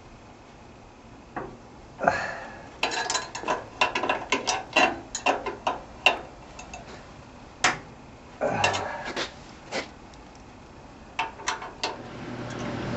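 Wrench and socket clicking and clinking against a welder's diode rectifier plate as a diode stud nut is checked and turned: irregular sharp metal clicks and clanks, thickest through the middle.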